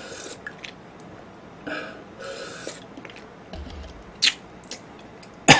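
Close-miked eating sounds: a drink swallowed from a cup and breaths, then a few sharp clicks, the loudest near the end.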